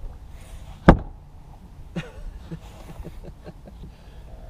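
A sharp, loud knock about a second in, a lighter knock about a second later, then small scattered clicks: hard plastic or lids being handled while tackle is rummaged through on a boat deck.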